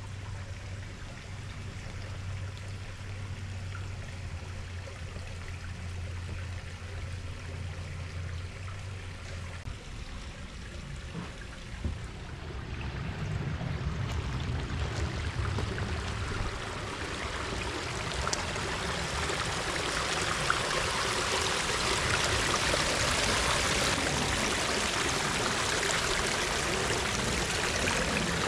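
Water trickling and running in a small garden stream and pond, growing louder through the second half. A low steady hum runs through the first third and then stops.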